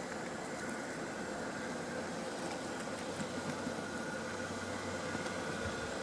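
A steady mechanical hum from a distant motor, unchanging throughout.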